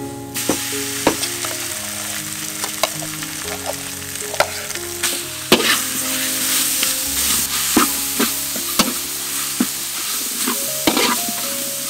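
Minced pork, shallots, garlic and chilies sizzling in a hot wok while a spatula scrapes and knocks against the pan as they are stir-fried. The sizzle starts suddenly a moment in, and the spatula knocks come irregularly throughout.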